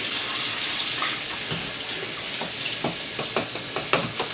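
Water running from a kitchen tap in a steady hiss, with scattered light clicks and splashes in the second half.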